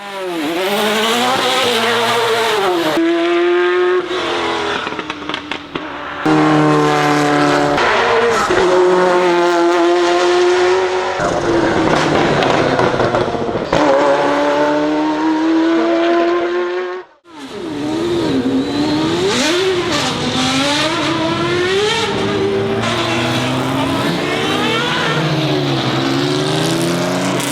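Ferrari F40 LM's twin-turbo V8 accelerating hard. Its pitch climbs and falls again and again as it revs up and changes gear. The sound drops out briefly about 17 seconds in, then the engine revs up and down again.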